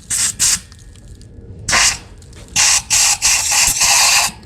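Compressed-air blow gun blowing dust out of a drilled wedge-anchor hole: two short puffs, another short one, then a long blast of hissing air.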